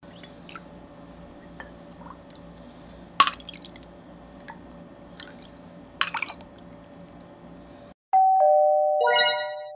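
Faint clinks of a metal ladle against a glass bowl of sikhye, twice, over a low steady hum. About eight seconds in, a loud doorbell-like ding-dong chime sounds: a higher note, then a lower one, then a brighter ringing note that fades away.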